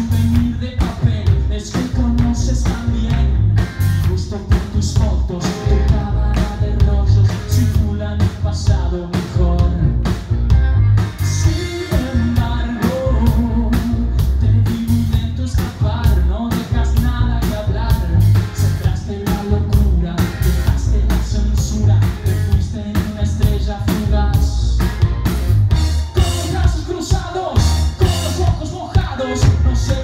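Live rock band playing: electric guitar, bass and drum kit, with a male lead singer singing over them.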